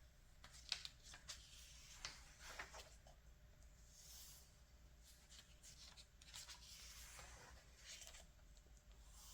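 Faint rustling of glossy magazine pages being handled and turned: scattered soft paper clicks and brief swishes.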